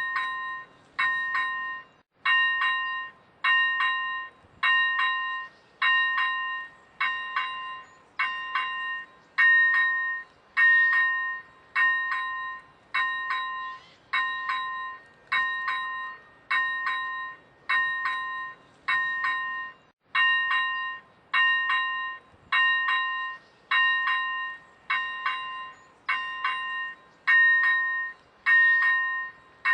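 Czech railway level-crossing warning bell ringing steadily, about one strike a second. Each strike rings with a few clear tones and fades before the next, which signals that a train is approaching the crossing.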